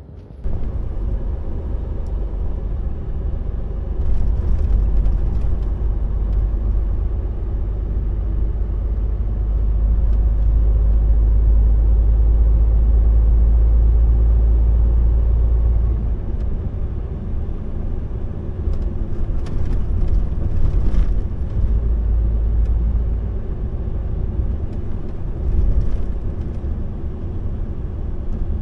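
A motor vehicle driving on the road: a steady low rumble of engine and road noise. It starts abruptly, is louder from about four seconds in and eases off after about sixteen seconds.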